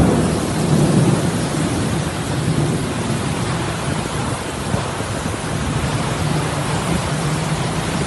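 Heavy rain falling hard in a storm: a steady, dense hiss with a low rumble under it, strongest in the first second.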